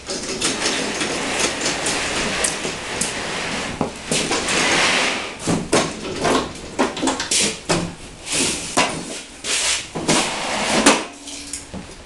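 Push mower being pulled off a folding table and down a tilted card-table ramp. Its wheels make a steady rolling rumble on the table tops for the first few seconds, then comes a string of knocks and clatters as the mower and tables bump and it reaches the concrete floor.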